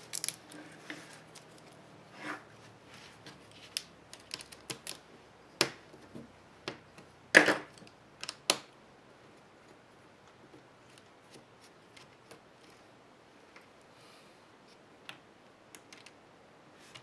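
Small clicks, taps and scrapes of hands handling a laptop's plastic top case and its internal cables and wires. The loudest is a short rattle about seven and a half seconds in, and the last several seconds hold only faint ticks.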